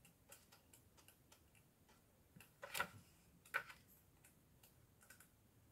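Near silence broken by faint, irregular light clicks and taps from objects handled on a table, with two louder knocks a little before and after the middle.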